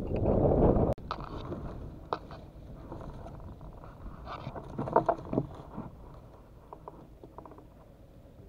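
Wind buffeting the microphone for about the first second, cut off abruptly, then quiet open-air background with a few short knocks, the loudest cluster about five seconds in.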